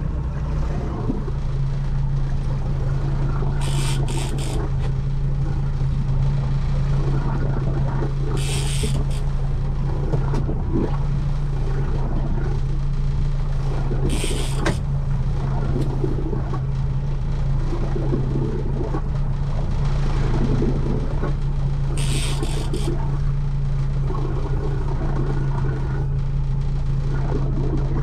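Motorboat engine running steadily at trolling speed, a constant low hum, with four short hissing bursts spread through it.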